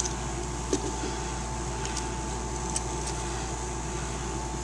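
Steady background hum and hiss, with a few faint clicks from the plastic parts of a transforming action figure being moved.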